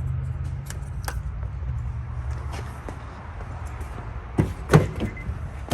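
Steady low rumble, then two loud sharp knocks a few tenths of a second apart about four and a half seconds in.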